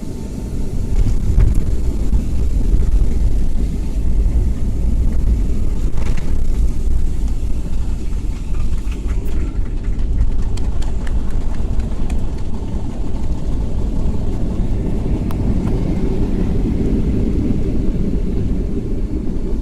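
Boeing 757-200 airliner heard from inside the cabin during landing rollout or taxi: a loud, steady low rumble of engines and wheels that steps up about a second in, with a few light clicks and rattles in the middle.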